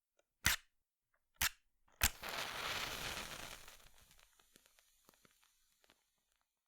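A match struck against a matchbox three times: two short scrapes, then a third strike a little over 2 seconds in that catches and flares with a hiss, which fades over about three seconds with a few faint crackles.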